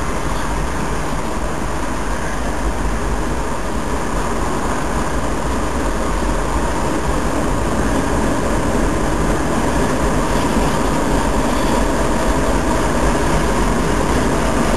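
Freight train of boxcars rolling past: a steady rumble and rattle of wheels on the rails that grows slowly louder.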